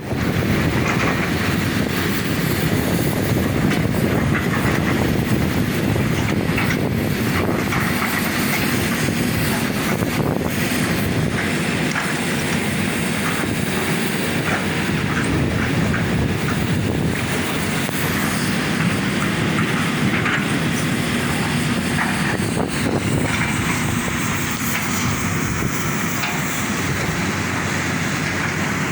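Diesel engines of tracked earthmoving machines running steadily while working soil, with repeated metallic clatter and scattered knocks over the engine noise.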